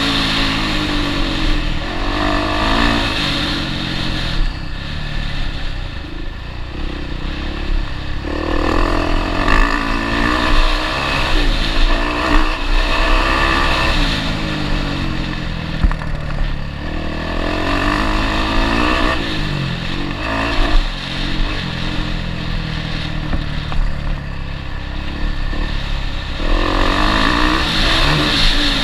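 Motocross bike engine heard from on board the bike. It revs up and drops back over and over as the rider accelerates and shifts through the gears on the rough track.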